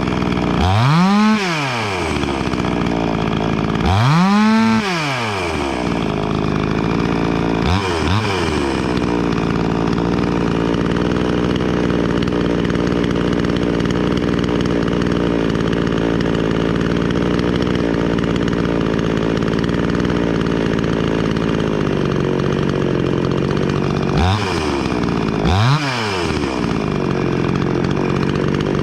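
Wemars WS-6220G 62cc two-stroke chainsaw (a Zenoah clone) running. It is revved up and back down three times in the first several seconds, then idles steadily, with two quick blips of the throttle near the end.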